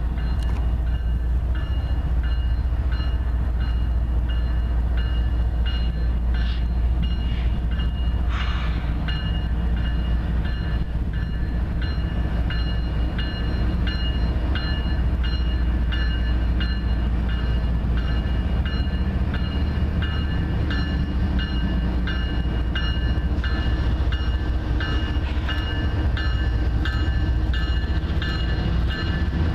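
Union Pacific diesel locomotives approaching with a steady low engine rumble, while a locomotive bell rings with steady, evenly spaced strokes.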